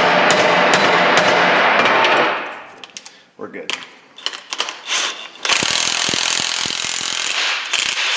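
A quick run of hammer blows on a steel exhaust-pipe expander, about three a second, stops after two seconds. Then a few handling clicks, and a cordless impact wrench runs for about two seconds, driving the expander to stretch the pipe end open.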